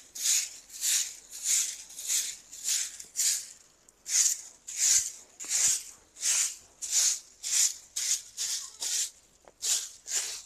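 Short hand broom (jhaaru) sweeping a bare earthen courtyard floor that has been lightly sprinkled with water: a steady rhythm of brisk swishes, about two strokes a second, with a short break about four seconds in.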